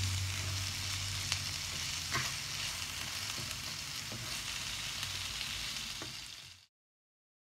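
Chopped leeks sizzling in butter and oil in a wide frying pan as they soften, stirred with a wooden spoon that knocks lightly against the pan a few times. The sizzle cuts off abruptly near the end, leaving silence.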